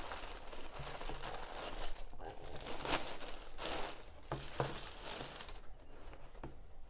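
Thin clear plastic bag crinkling and rustling as it is handled and a pair of slippers is pulled out of it, in irregular crackles that die down about five and a half seconds in.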